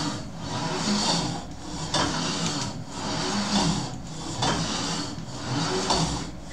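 Steel cable of a plate-loaded cable machine running back and forth over its pulleys under a 45 kg load during cable crunches: a rasping swell with each pull down and each return, about every second and a half, with a few sharp knocks as the plates move.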